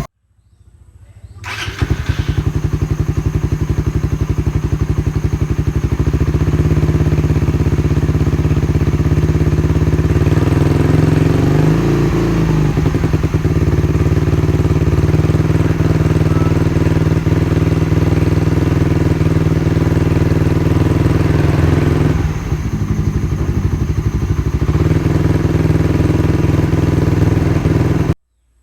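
Suzuki Raider 150 Fi's single-cylinder four-stroke engine running through a gutted (kalkal) exhaust pipe, starting about a second and a half in and idling steadily. About halfway through it is blipped once, the pitch rising and falling back, and it cuts off abruptly near the end.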